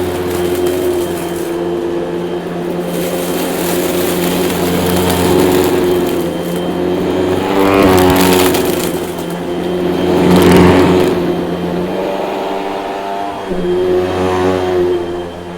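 Hoover vacuum cleaner running with a loud, steady motor hum. Its pitch wavers and swells briefly twice, around the middle.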